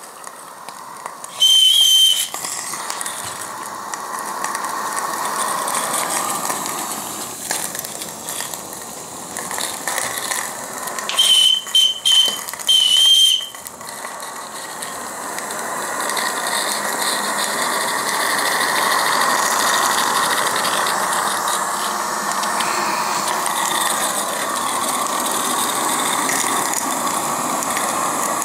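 Regner 'Emma' live-steam 0-4-0T tank locomotive running on its track with a steady mechanical running noise and hiss of steam, growing louder in the second half. Its high-pitched steam whistle sounds once about two seconds in, then three short toots around the middle.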